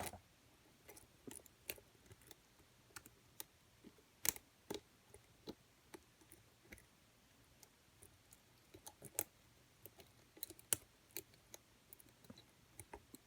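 Wire pick working the levers inside a small lever lock under moderate tension: faint, irregular metallic clicks and ticks.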